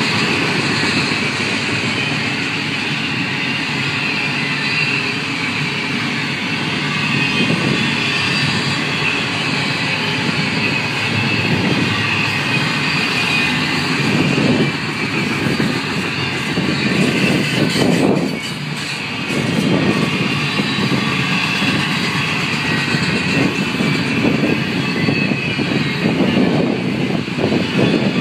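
Double-stack intermodal well cars rolling past close by: a loud, steady noise of steel wheels on rail, briefly quieter about eighteen seconds in.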